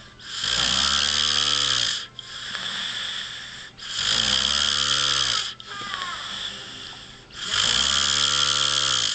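A sleeping man snoring: three loud snores about every three and a half seconds, each lasting under two seconds and rising then falling slightly in pitch, with quieter breathing between them.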